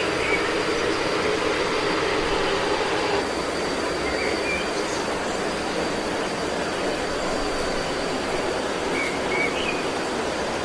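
Steady rushing of flowing water, with a thin steady high-pitched whine over it and a few short chirps, about three times.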